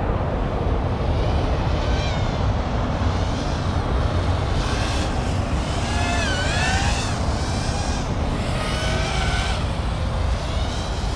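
Five-inch FPV racing quadcopter in flight, its Foxeer Datura 2206 2700kv brushless motors and props whining, the pitch rising and falling with throttle over a steady rush of wind noise.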